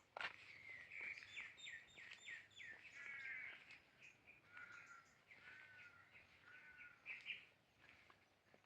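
Wild birds calling: a quick run of short, down-slurred notes, then slower arched whistles. A single sharp click comes just after the start.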